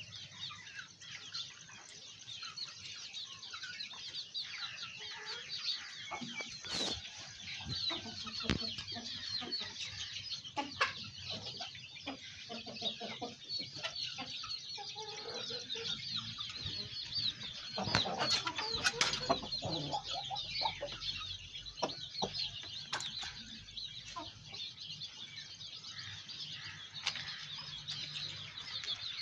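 Aseel chickens clucking, with constant high twittering chirps and a few sharp knocks or wing flaps.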